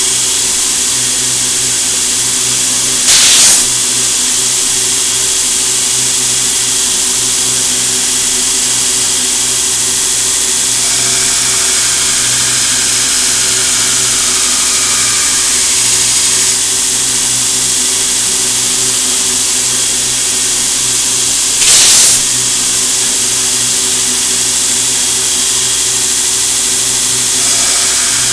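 Belt grinder running steadily, its motor humming under the hiss of the abrasive belt as a CPM 15V steel knife blade is ground against it, throwing sparks. Two short, loud hissing bursts cut in, one about three seconds in and one near 22 seconds.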